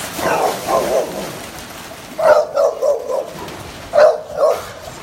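A dog barking in three short volleys of sharp barks, complaining because it can't get a toy.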